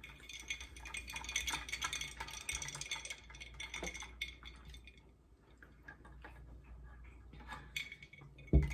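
Eating sounds: soft clicks and scrapes of a utensil in a takeout food container, busier in the first half, with a sharp knock near the end.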